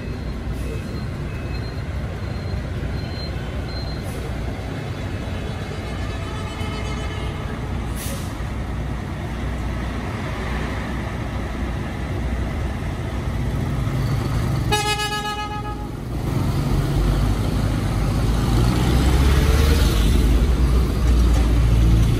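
Street traffic with heavy trucks and motorbikes running, a steady low engine rumble throughout. A vehicle horn honks once, for about a second, roughly two-thirds of the way in, and the engine rumble grows louder afterwards as a truck moves past close by.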